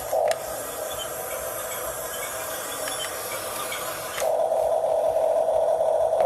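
Huina 1569 RC toy bulldozer's electric drive motors and plastic gearboxes whining, with a short louder burst right at the start. About four seconds in the whine steps up louder and steadier as the motors take more power.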